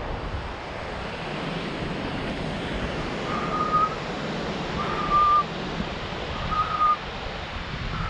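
Short whistled notes at one steady pitch, each about half a second long, repeated roughly every second and a half from about three seconds in, over a steady rushing noise.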